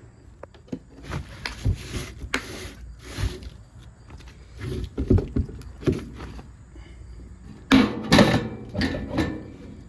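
Irregular knocks, clatter and short scraping noises of hands working with tools and parts, with the loudest cluster of knocks about eight seconds in.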